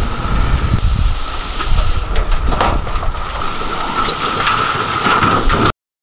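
Hyundai Trago dump truck's diesel engine running with a low rumble and a steady high whine as soil slides out of the raised tipper bed, with scattered knocks. The sound cuts off suddenly near the end.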